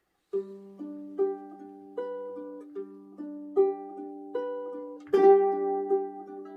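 Ukulele playing: single picked notes one after another in a steady pattern, then a louder strummed chord about five seconds in.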